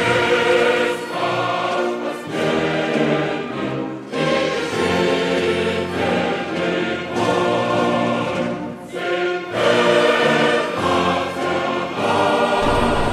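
A choir singing, in sung phrases a few seconds long with brief breaks between them.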